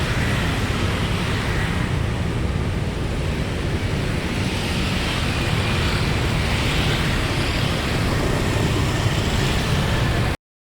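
Steady road traffic noise with a heavy low rumble, cutting off suddenly near the end.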